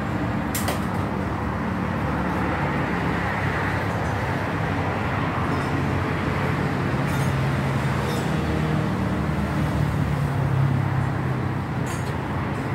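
Steady road traffic noise, with the low hum of a heavy vehicle's engine swelling about eight to eleven seconds in. A couple of sharp clicks, near the start and near the end.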